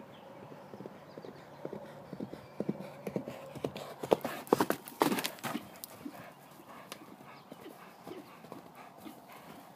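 Horse's hooves beating on dirt at a gallop, the hoofbeats growing louder as it comes close and loudest about four to five seconds in, then fainter.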